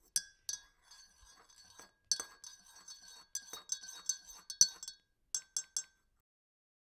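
A teaspoon clinking against a china teacup with a short ring: two light clinks, a busy run of clinks, then three quick taps near the end.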